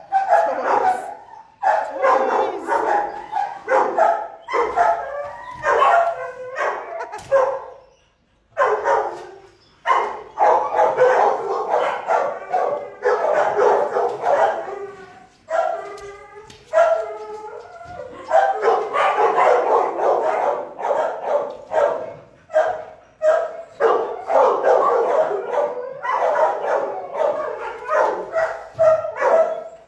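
Shelter dogs in their kennels barking almost continuously, with a brief lull about eight seconds in. They are worked up by the squeaking of extra toys being handed out.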